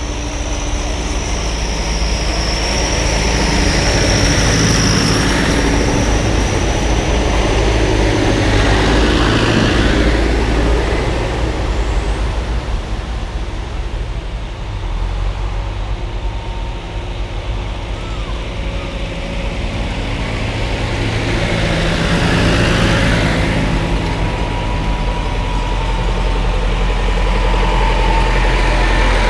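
Tractor engines running steadily as a procession of tractors drives past on a lane, swelling as each nears and fading as it goes, easing off in the middle and building again near the end as a red tractor draws close. A high thin whine rides over the engines in the first few seconds.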